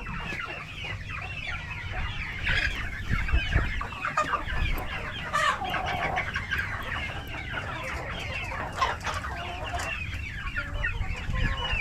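A flock of Rhode Island Red chickens clucking, with many short calls overlapping throughout.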